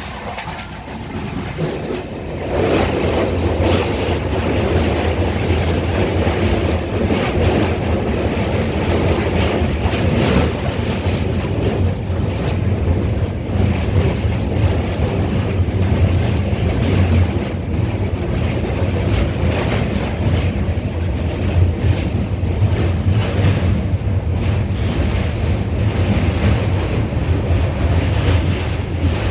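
Passenger train running, a steady rumble of wheels on the rails heard from a window seat inside the coach, growing louder about two seconds in.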